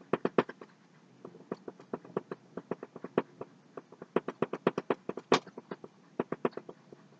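Paintbrush making quick, short strokes on a stretched canvas: a run of light taps and scratches, several a second, in irregular clusters with short pauses and one sharper tap about five seconds in.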